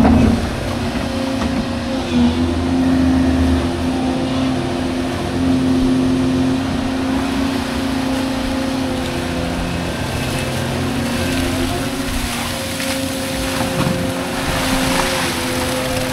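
Excavator's diesel engine running steadily under load as it digs out a spot in the mud and sand, its pitch wavering slightly as the hydraulics work.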